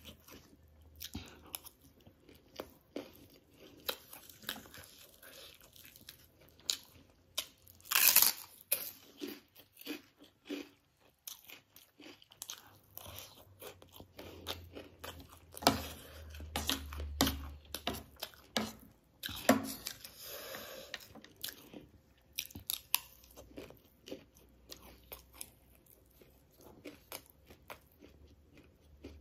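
Close-up chewing and crunching of spicy chatpate (a puffed-rice snack mix) eaten with crunchy dhungri (gol finger) sticks: a steady run of crisp crunches, with the loudest bite about eight seconds in.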